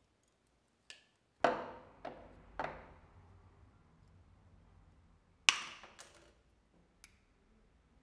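Pliers and side cutters handled over a wooden table: a series of about seven sharp metallic clicks and knocks with short ringing tails. The loudest, about five and a half seconds in, fits the side cutters snipping through steel wire.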